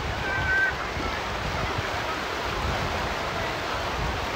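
Sea surf washing on the beach, a steady rush of water, with a brief faint high call or voice about half a second in.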